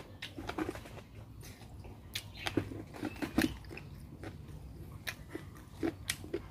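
A man chewing a mouthful of bamboo-shoot salad and steamed pig's face close to the microphone, with scattered short wet mouth clicks and bites.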